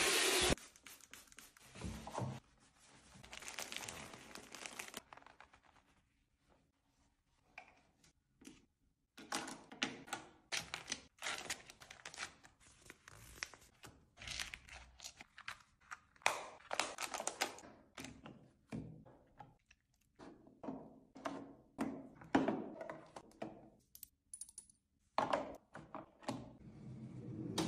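Skincare bottles and sheet-mask packets being set into a drawer organiser one by one: a string of light knocks and clicks, with rustling of plastic packaging.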